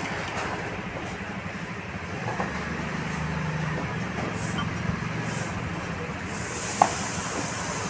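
A motor running steadily with an even low hum. A hiss of air starts a little past six seconds in and runs on, and there is one sharp click just before the end.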